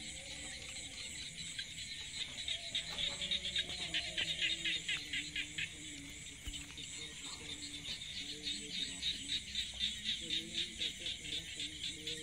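Insects calling in a rapid pulsing trill, several pulses a second, fading around the middle and returning near the end, with faint low tones beneath.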